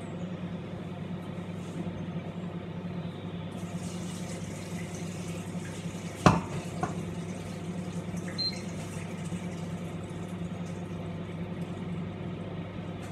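Water running into a kitchen sink as a pan of cooking water is drained, over a steady low hum. One sharp knock about six seconds in.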